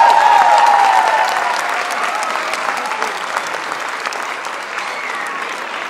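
Audience applauding, with high cheers and whoops over the clapping in the first second or so; the clapping then slowly dies down.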